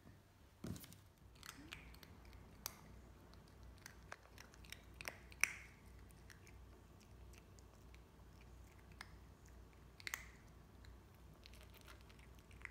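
Chihuahua–toy poodle mix puppy eating dry kibble from a stainless steel bowl: faint, scattered crunches and clicks, with a sharper click about five seconds in and another about ten seconds in.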